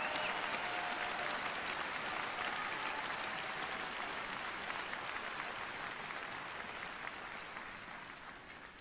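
Rink audience applauding a skater as she takes the ice, the applause slowly dying away to almost nothing.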